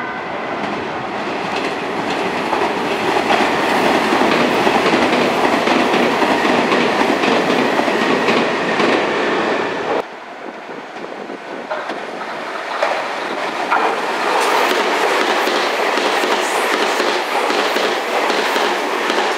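Meitetsu limited express electric train running through the station, its wheels clattering over the rails and points, getting louder over the first few seconds. About halfway the sound drops off suddenly and a second train runs alongside the platform with a few sharp clacks and a rising hiss.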